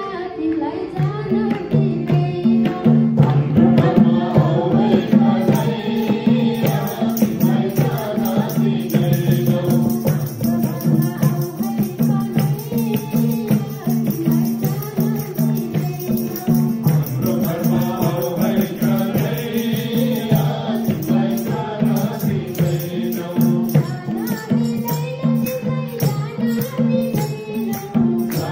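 Nepali devotional bhajan: a man sings to a harmonium's steady reedy drone, with madal hand drums beating a brisk, even rhythm. A high jingling joins about five seconds in.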